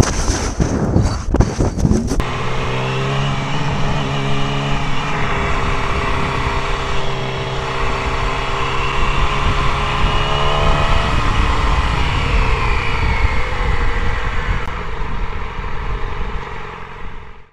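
The first two seconds are a clatter of knocks and rushing noise from a tumbling camera. Then a Yamaha sport bike's engine runs steadily at road speed under heavy wind rush, its note shifting about two-thirds of the way through, then fading out at the end.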